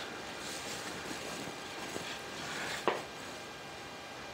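Steady low rushing background noise in the workshop, with a single light knock about three seconds in as a wooden board is handled.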